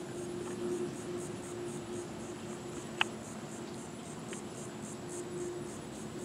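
Outdoor background of insects chirping in a high, evenly pulsing rhythm over a low steady hum, with one sharp click about three seconds in.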